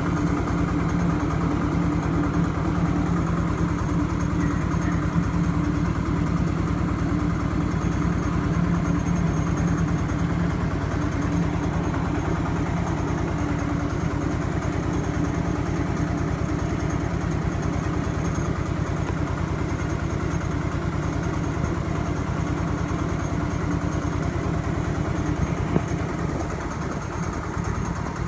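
Single-cylinder diesel engine of a walking tractor running steadily, belt-driving a small rice mill as it mills paddy into white rice.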